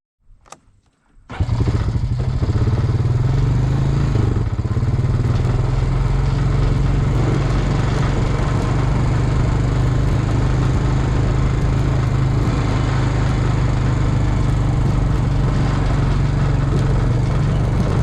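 A vehicle engine running steadily. It comes in suddenly about a second in and holds an even pitch.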